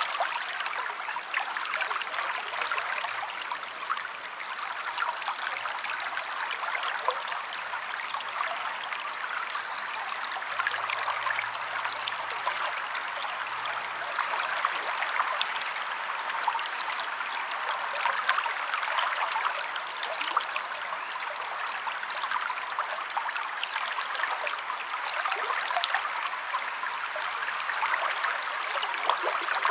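River water flowing steadily, a continuous rushing and trickling. Faint, brief high chirps come through a few times, birds calling.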